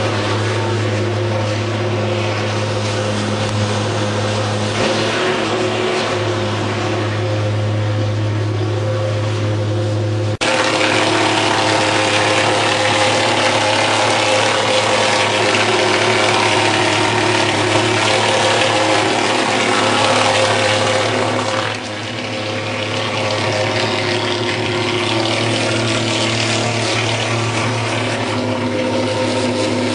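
Handheld thermal fogging machine running, its pulse-jet engine making a loud, steady, low-pitched drone while it blows out thick white fog. The drone changes abruptly about ten seconds in.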